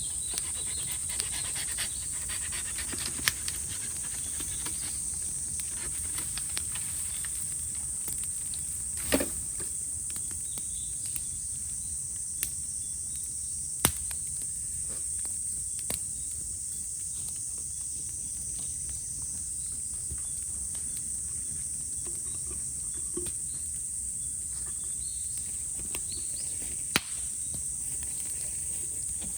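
Chorus of cicadas singing: a steady, high-pitched buzz. A handful of sharp pops and crackles from the bamboo fire break through now and then.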